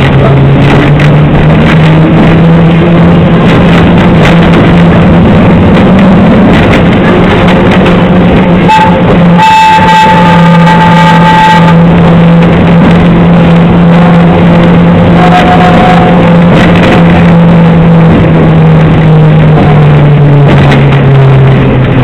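The Botchan Ressha tram's diesel engine running with a steady low drone as the car rattles along, heard from inside the passenger car. About ten seconds in, its whistle blows once for about two seconds.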